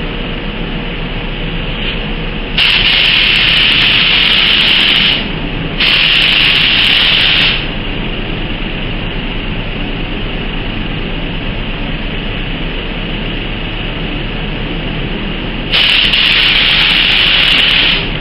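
Gravity-feed paint spray gun triggered three times, each pass a loud steady hiss of atomising air lasting about two seconds, the first a little longer; the gap between the second and third is long. The fluid control is wound in, so the gun is running less fluid for a lighter coat. A steady background noise runs underneath.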